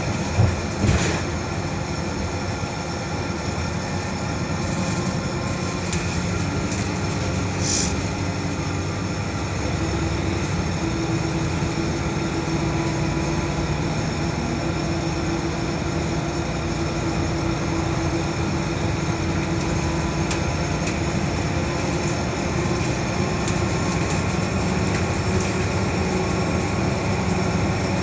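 Interior noise of a Volvo B12BLEA articulated bus under way: steady diesel engine and road noise, with a steady tone that comes in about ten seconds in and holds. A couple of knocks just after the start.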